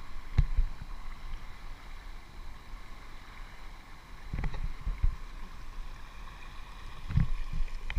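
River water rushing over rocky rapids, heard from a camera held at the water's surface. Low thumps of water and handling against the camera come about half a second in, around four and a half seconds and near seven seconds.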